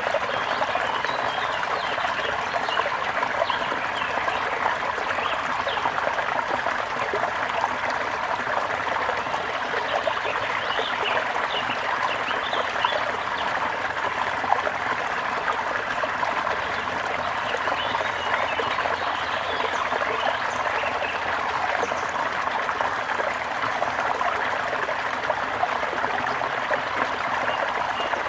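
Brook water trickling and babbling steadily, with faint short bird chirps now and then.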